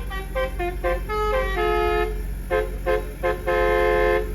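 Multi-tone telolet bus horn playing a tune: a quick run of short musical horn notes, often two pitches sounding together, ending on a longer held chord that cuts off sharply.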